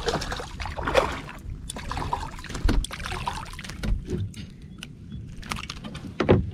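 A hooked fish splashing at the surface beside a plastic kayak, followed by scattered knocks and rattles against the hull as it is lifted in on the line.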